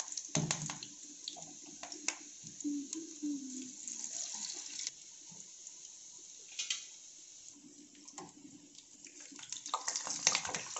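Noodle-and-fish-roe pakoras deep-frying in hot oil in a pan: a steady sizzle with frequent crackles and pops. It grows louder and busier near the end as a slotted spoon stirs and turns them in the oil.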